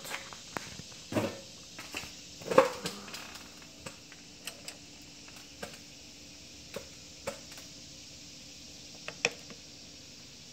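Irregular light clicks and taps, a few louder ones in the first three seconds and only occasional ones after. A faint steady hum comes in about three seconds in.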